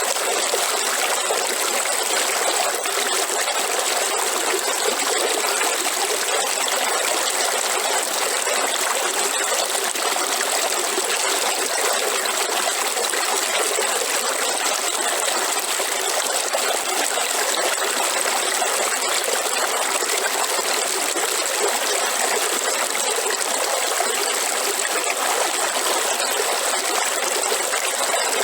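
River water flowing and trickling steadily over rocks, with a constant high-pitched hiss above it.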